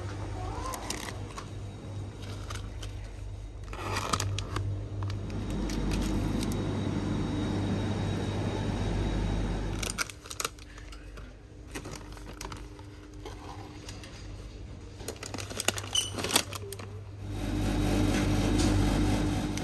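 Shop ambience with a steady electrical hum, and scattered clicks, knocks and rustles of drink bottles, snack packets and a can being handled on wire shelves.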